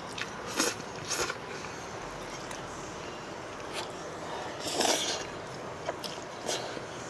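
Mouthfuls of ramyeon noodles being slurped and chewed. There are a few short slurps and one longer, louder slurp about five seconds in.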